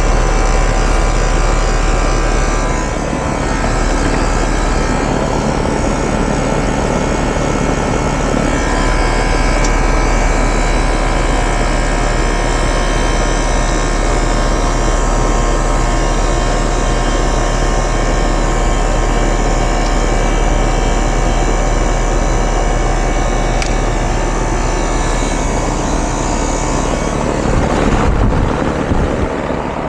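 A 1996 Ruud outdoor air-conditioning unit running steadily, its compressor humming under the rush of the condenser fan. Near the end it briefly gets louder.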